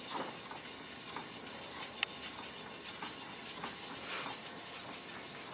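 A Norton sharpening stone, its orange abrasive side wetted with stone solution, sliding in faint strokes along speedskate blades clamped in a sharpening jig. A single sharp click comes about two seconds in.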